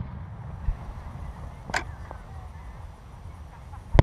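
Aerial fireworks going off: a dull thump under a second in, a sharp crack near the middle, and a loud bang right at the end, over a steady low rumble.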